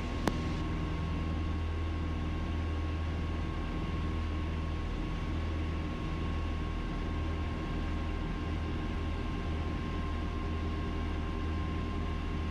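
Piper Twin Comanche's two four-cylinder Lycoming engines and propellers running steadily at approach power, heard as a constant low drone inside the cockpit, with a faint steady high whine over it. A single sharp click comes just after the start.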